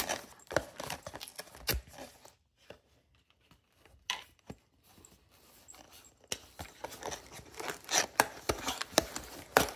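Paper and cardboard packaging of a small blind box handled by hand, tearing and crinkling in short scratchy rustles. There is a quiet pause of about two seconds a couple of seconds in, then the crinkling grows louder toward the end.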